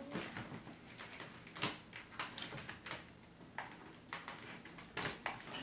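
Scissors snipping through the clear plastic window of a toy blaster's cardboard box, a run of irregular sharp clicks and crackles of plastic and cardboard.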